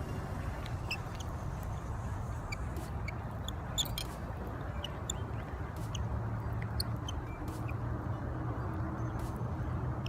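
Outdoor ambience: a steady low rumble with scattered short, faint high chirps.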